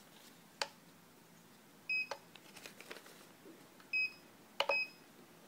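Ratio-tec Soldi Smart Plus banknote detector giving three short, high beeps as its buttons are pressed, each beep confirming a press in the settings menu. Soft clicks of the plastic buttons come between the beeps.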